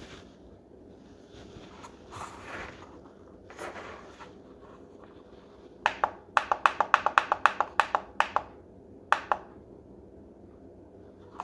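Buttons on a plastic alarm clock being pressed: a couple of soft handling rustles, then about fifteen quick clicks over two and a half seconds and one more a moment later. The presses step the clock's time setting forward.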